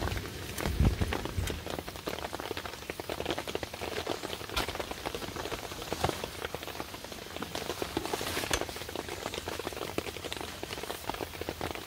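Steady rain falling, with many single drops ticking sharply close by. A brief low thump comes about a second in.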